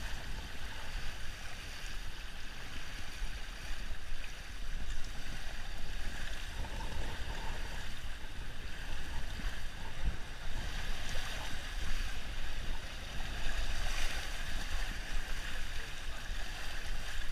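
Steady rush of flowing, splashing water in a lazy-river channel, with a low rumble underneath.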